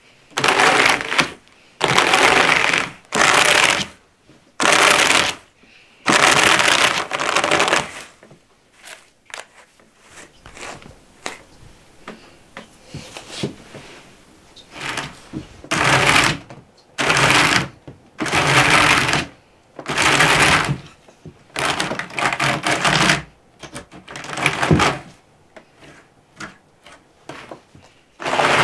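Wool being carded with a pair of wooden hand carders: the wire teeth are drawn through the fibres in repeated brushing strokes, each about a second long. The strokes come in quick runs, with a quieter stretch of small scratches in the middle.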